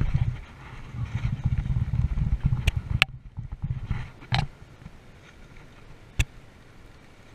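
Choppy low rumbling against the microphone for the first few seconds, then a handful of sharp clicks and knocks as the spinning reel is handled, the last one a few seconds after the rumble dies away.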